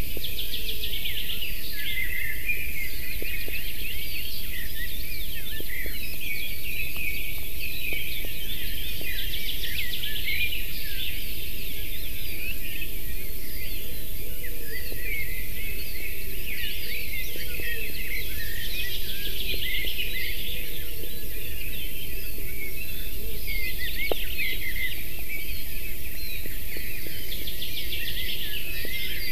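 Several small songbirds singing and chirping in the surrounding forest, one trilling phrase coming back every eight to ten seconds, over a steady low rumble and a constant high hiss.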